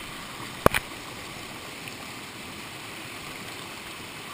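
White water of a mountain stream rushing and cascading over rocks in a steady flow, with a sharp double knock under a second in.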